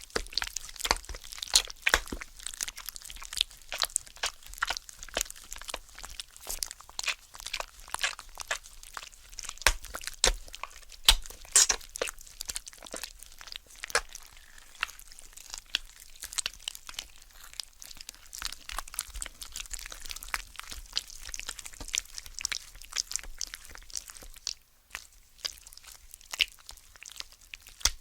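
Cartoon gore sound effects played one after another: a dense run of crunching, tearing and crackling, like flesh and bone being crushed and ripped, with a brief pause near the end.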